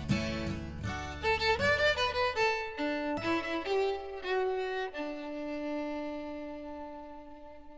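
Fiddle music: a lively melody over low backing instruments. The backing drops out about two and a half seconds in, and the fiddle closes on a long held note that slowly fades away.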